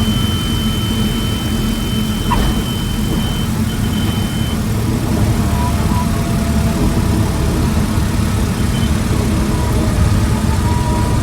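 A light airplane's engine running steadily at low power during the landing. A thin, steady high tone sounds over it for the first few seconds, then stops.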